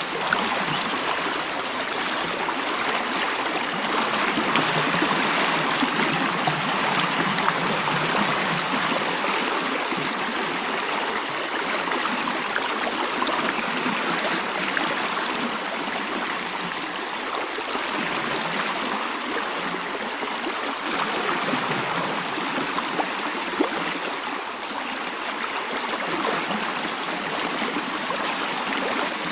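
Mountain stream flowing steadily: a continuous rush of water with a few brief splashes.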